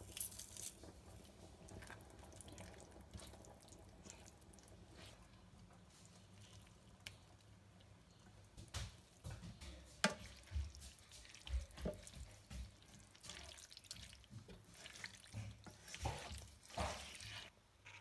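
Soft wet stirring and scraping in a pan of creamy sauce, as pasta water and bow-tie pasta go in, with scattered soft knocks and clicks of the utensils, more of them in the second half.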